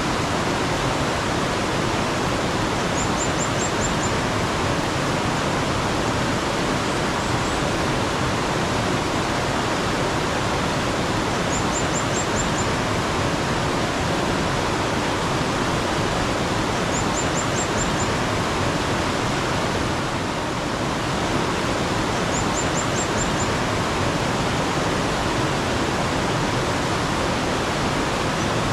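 Mountain stream rushing steadily, with a small bird giving a brief, high, rapid trill four times, about every five to six seconds.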